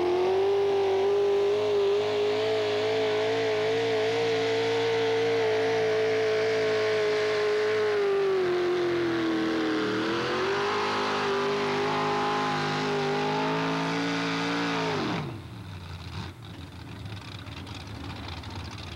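A modified pulling tractor's engine running hard as it drags the sled down the track, its pitch held steady, sagging briefly about ten seconds in and picking up again. About fifteen seconds in, the pitch falls sharply and the engine cuts out, marking the end of the pull.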